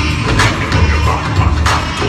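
Dance music with a heavy, steady bass beat, played loud over the hall's stage loudspeakers.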